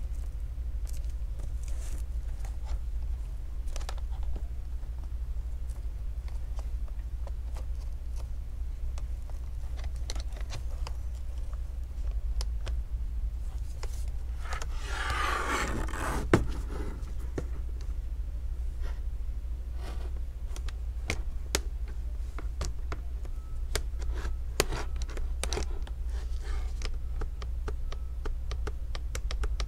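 Scattered small clicks and taps of gloved hands working at the screen hinges and chassis of an opened HP Spectre x360 laptop, with a longer scraping rub about halfway through that ends in a sharp click. A steady low hum runs underneath.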